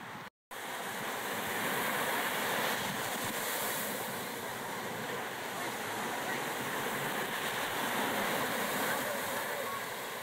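Steady rush of ocean surf mixed with wind buffeting the microphone. It begins after a brief silence right at the start.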